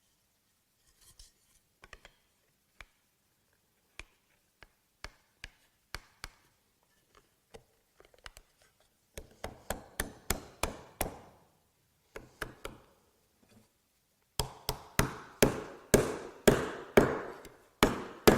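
Hammer tapping a wooden joint together: scattered light taps at first, then a quick run of blows about nine seconds in, and a louder run of blows near the end.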